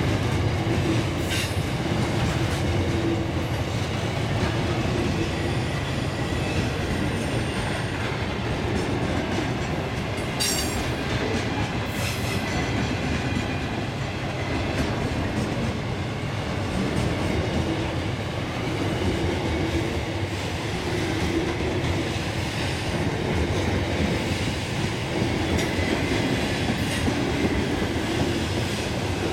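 Loaded grain hopper wagons rolling past on a curve: a steady rumble and clatter of wheels on rail, with now and then a thin, high wheel squeal.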